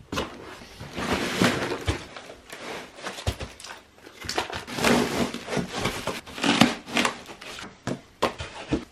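Packaging being handled during an unboxing: cardboard, foam packing sheets and plastic-bagged parts rustling, scraping and crinkling, with irregular knocks and clicks.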